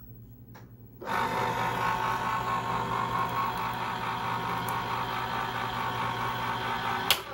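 Oster FPSTCN2000 electric can opener's motor running, turning the can while its cutter goes around the lid. It starts about a second in, runs steadily for about six seconds, and stops with a sharp click near the end.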